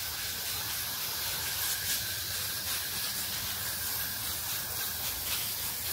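Garden hose spraying water overhead in a steady hiss, the water falling like rain onto the garden plants.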